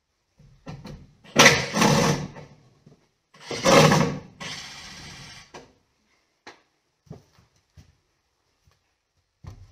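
Cordless driver backing screws out of a 2x4 on a wooden stanchion frame: two loud bursts a couple of seconds apart, the second trailing off into a shorter steadier run, then a few light knocks of wood near the end.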